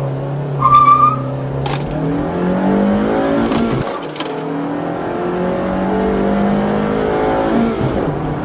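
Honda Civic FD6 engine at full throttle in a standing-start acceleration run, heard from inside the cabin. A brief high squeal comes just after the launch, then the revs climb through first gear, drop at the shift into second about four seconds in, and climb again until the next shift near the end.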